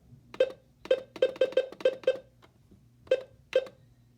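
Buttons on an AlertWorks EAR10 weather radio being pressed to set the alarm time. There are about nine short, pitched key-press sounds, irregularly spaced: a quick run in the first two seconds, then two more about three seconds in.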